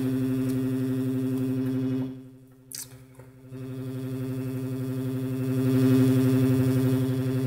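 Homemade Arduino Nano FM software synthesizer (Mozzi library) playing a low sustained note with many overtones and a fast flutter. About two seconds in it cuts out, with a click in the gap. Then the note comes back and swells, loudest around six seconds in.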